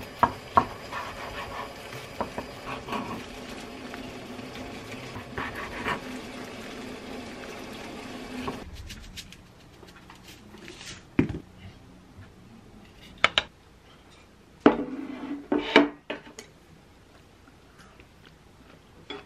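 Knife slicing a rolled egg gimbap on a wooden cutting board: sharp knocks of the blade on the board near the start over a steady kitchen hum. About halfway through the hum drops away, and a few separate knocks and clatters of dishes being handled follow.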